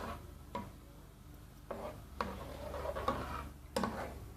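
A utensil stirring powdered potato flakes into milk in a pot, knocking against the pot a few separate times, over a faint low hum.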